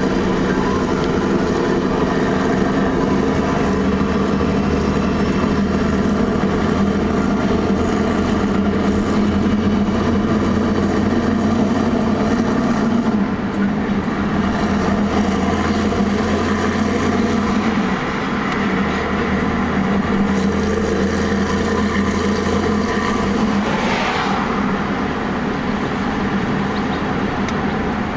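Heavy-haulage truck's diesel engine running steadily, its note and loudness stepping down a few times, with a short burst of noise near the end.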